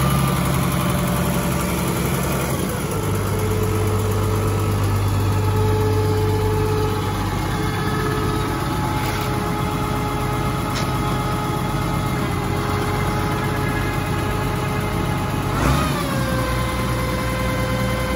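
Ford New Holland 8340 tractor's diesel engine running steadily at low revs. The engine note drops slightly near the end and then holds steady.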